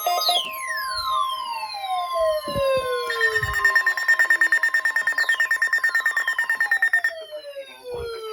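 NOAA Weather Radio 1050 Hz warning alarm tone, a steady high tone that cuts off about seven seconds in. Layered with it are repeated falling siren-like glides and, from about three seconds in, a rapid pulsing higher tone.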